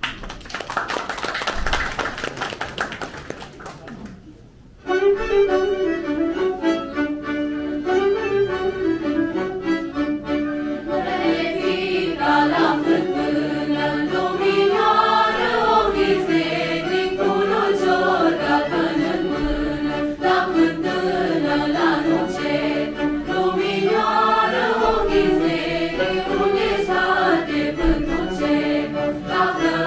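A few seconds of applause, then a mixed choir of carolers starts abruptly, about five seconds in, singing a colindă (Romanian Christmas carol) in unison melody, with a violin accompanying.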